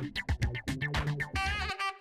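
Background music: an upbeat track with a steady drum beat and a bass line, joined about one and a half seconds in by a lead melody line with vibrato while the bass and drums drop out.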